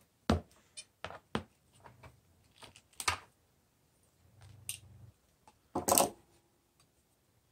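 Hand-held wire stripper clicking and snipping as the insulation is stripped off the ends of a power cord: a handful of separate sharp clicks spread over the seconds, with a louder clatter about six seconds in.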